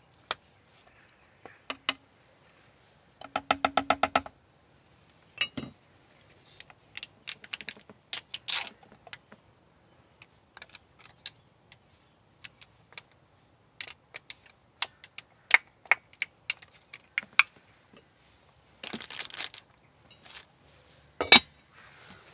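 Cooking clatter: a wooden spoon stirring and knocking in a heavy lidded cooking pot, with utensils set down on a table. It is a string of sharp, separate clicks and knocks, with a quick rattle about three seconds in, a short rustle near the end and the loudest knock shortly before the end.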